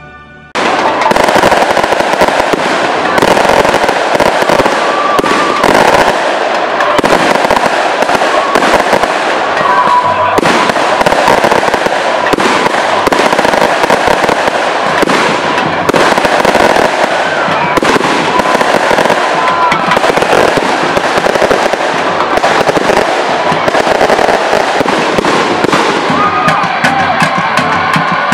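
A long string of firecrackers going off, a dense and very loud run of rapid pops that starts suddenly about half a second in and thins out near the end.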